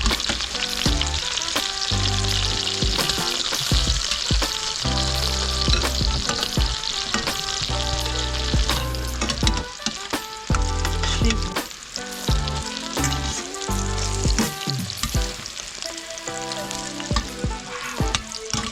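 Tuatua mixture frying in a pan of olive oil and butter: a steady sizzle that eases off about halfway through.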